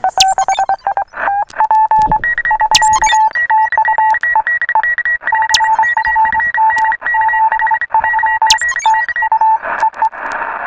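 Rapid electronic beeping in short, quick pulses, stepping up in pitch about two seconds in, with a sharp hit roughly every three seconds.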